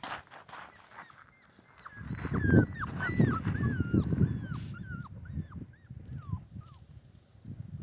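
Central Asian Shepherd puppy whimpering: a quick run of short, high whines, each falling in pitch, starting about a second in and fading out near the end.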